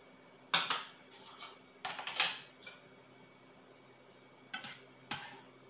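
Metal kitchen utensil clinking and scraping against a small metal bowl, in about five short clatters that come in two groups.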